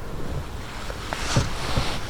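Wind buffeting the microphone over water lapping around a small boat, with one short noise about one and a half seconds in.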